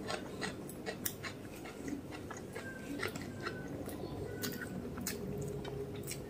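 Close-miked chewing of mutton biryani: scattered sharp, wet mouth clicks over a steady low hum, with fingers working rice on a banana leaf.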